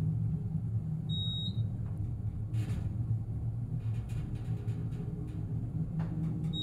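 US Elevator two-speed hydraulic elevator travelling down with a steady low hum. A short high electronic beep sounds about a second in and again at the very end.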